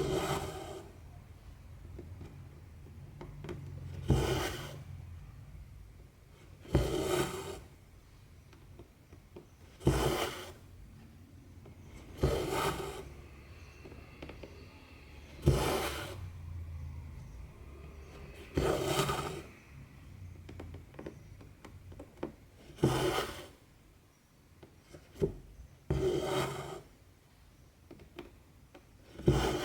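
Cotton embroidery thread being drawn through 14-count cross-stitch fabric, a short rasping swish for each stitch. It repeats about every three seconds, around ten strokes, each starting sharply and fading within a second.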